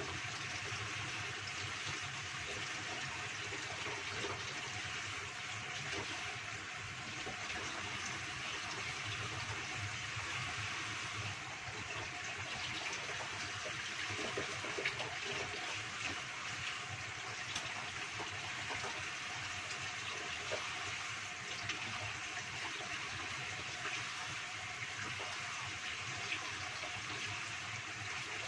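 Sauce with chicken feet simmering in a wok over a gas burner: a steady bubbling hiss with small scattered pops, as the liquid is cooked down.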